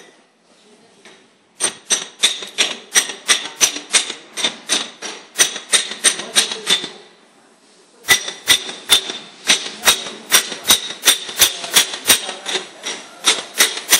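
Rapid sharp metallic striking, about three to four ringing taps a second, in two runs broken by a pause of about a second near the middle.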